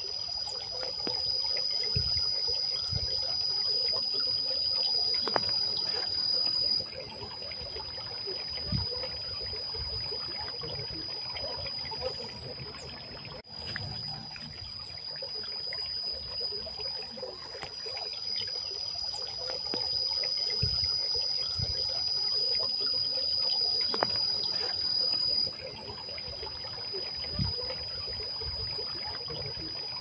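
Water trickling and splashing down the tiers of a stone garden fountain, with a steady high-pitched insect trill over it. The trill weakens about seven seconds in, comes back around halfway, and weakens again near the end.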